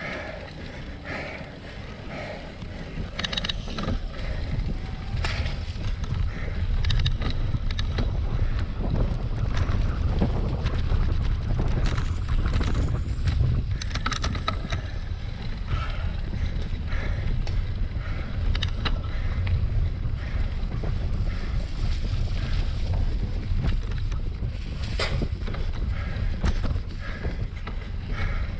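Wind rumbling on the camera microphone of a cyclocross bike being ridden through mud, growing louder about four seconds in, with scattered clicks and rattles from the bike.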